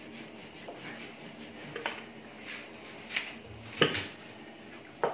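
Wooden rolling pin rolling out a dough ball on a stone counter, with a few short sharp knocks, the loudest nearly four seconds in.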